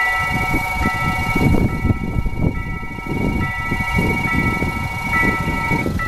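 Railway level-crossing alarm sounding its electronic warning tones, two pitches alternating about once a second, with a steadier tone that cuts off near the end. A loud, uneven low rumble runs underneath.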